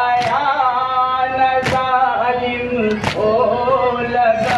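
Men chanting a noha, a Muharram lament, in long held lines, with the crowd's unison chest-beating (matam) landing as sharp slaps about every second and a half, four strikes in all.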